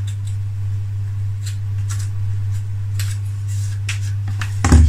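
Light, sharp clicks and scrapes of small hand work on balsa wood parts, scattered irregularly over a steady low electrical hum, with a louder thump just before the end.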